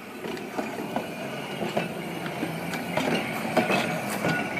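TTC Peter Witt streetcar rolling slowly past on its track, its steel wheels and trucks rumbling with irregular clicks and clanks, with a brief high squeal near the end.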